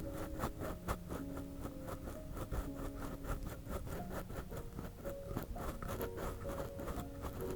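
Ear cleaning close to a binaural microphone's ear: rapid scratching and rubbing strokes, about five or six a second, with faint soft background music underneath.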